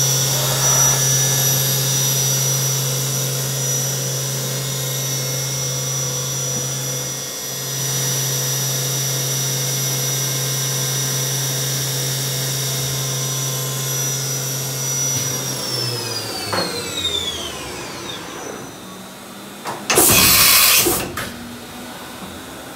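Doosan MV-3016L vertical machining center's spindle running at speed with a steady whine, then spinning down about two-thirds of the way through, its pitch falling away over a few seconds. Shortly after it stops there is a loud burst of hiss lasting about a second.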